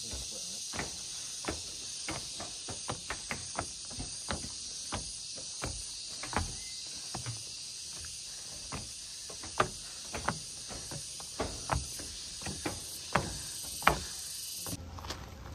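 Footsteps on steep outdoor stair treads, heard as sharp irregular knocks about one or two a second, over a steady high chirring of insects that cuts off near the end.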